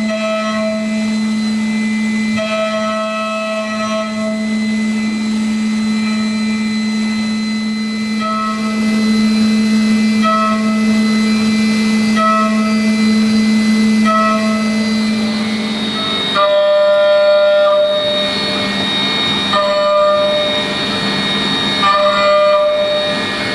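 CNC machining centre milling an A5052 aluminium block: a steady spindle hum and high whine, with a cutting tone that rises up about every two seconds as the cutter engages the metal. About two-thirds of the way through, the pitches drop slightly and the cutting tones become longer.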